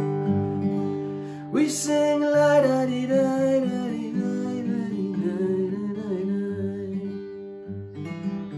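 Acoustic guitar playing chords, with a man's voice singing a wordless melody over it from about a second and a half in.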